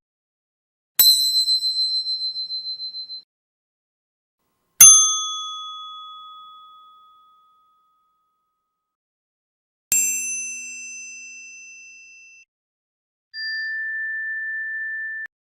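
A series of separate bell sound effects. First a bell rung in a quick trill for about two seconds, then two single struck bells, each ringing out and dying away. Last, a steady electronic tone that cuts off suddenly after about two seconds.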